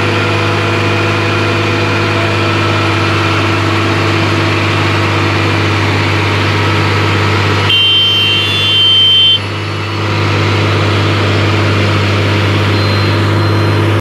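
Wheeled asphalt paver's engine running steadily with a constant low hum, as the machine spreads asphalt mix. About eight seconds in, a high whine sounds for a second and a half and cuts off sharply.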